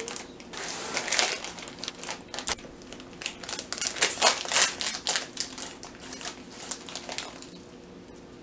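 Crinkly foil packaging being torn open and crumpled in the hands, a dense run of crackles that thins out near the end.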